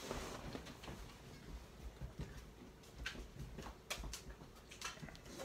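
Water poured from a small measuring cup into the plastic water trays in the base of an egg incubator: a brief faint trickle at the start, then a few light taps against the plastic.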